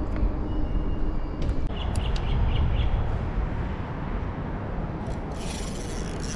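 Steady low rumble of traffic on the bridge overhead. A few short high chirps come around two seconds in, and a hiss starts about five seconds in.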